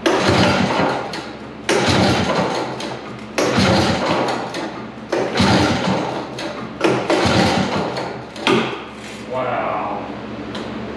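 Recoil pull-starter of a 1970 Evinrude Skeeter snowmobile's two-stroke engine being yanked about seven times, one pull every second and a half or so. Each pull is a sudden rasping crank that dies away, and the engine does not catch.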